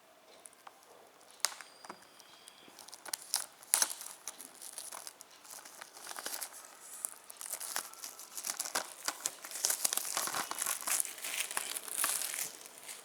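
Packaging crinkling and rustling as a Blu-ray case is handled and its paper digital-code insert taken out, with a few sharp plastic clicks. The crinkling is densest near the end.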